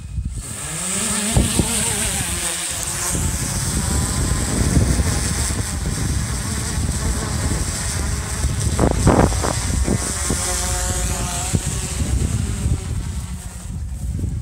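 DJI Inspire quadcopter's motors and propellers spinning up with a rising whine, then a steady loud buzz as the drone lifts off and flies.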